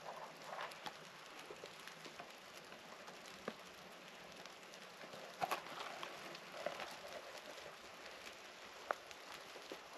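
Faint outdoor ambience with sparse soft ticks and patters. A few slightly louder ones come about three and a half, five and a half and nine seconds in.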